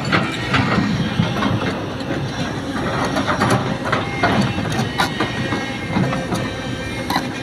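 Sumitomo hydraulic excavator working: its diesel engine runs steadily under load, with frequent sharp metallic clanks and rattles.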